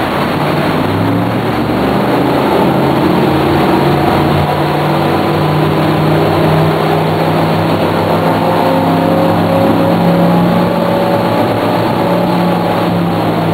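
Regal 4060 motor cruiser's engines throttling up from slow speed, the engine note rising over the first several seconds and then holding steady at speed over a broad rushing noise.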